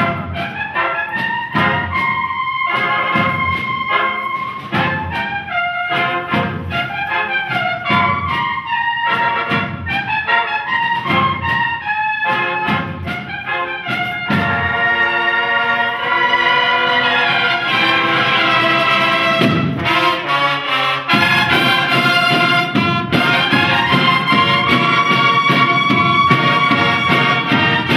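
Cornet-and-drum band music: cornets play a melody over a beat of drum strokes, growing fuller about halfway through.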